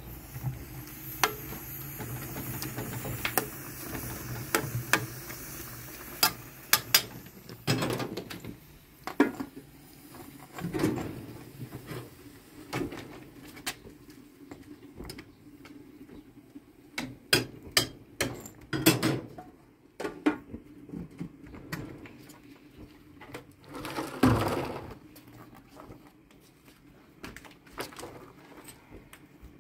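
A metal ladle knocking and scraping in a cooking pot on a gas stove, then rough building stones knocked and scraped as they are shifted and set against a brick wall, in a series of sharp clicks and heavier scrapes.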